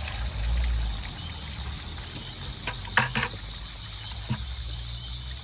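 Water trickling and splashing, with a few sharp knocks around the middle, the loudest about three seconds in.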